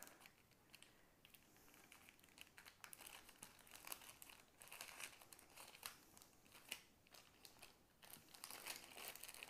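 Faint, irregular crinkling of a thin clear plastic bag being handled as small plastic diamond painting tools are slid back into it.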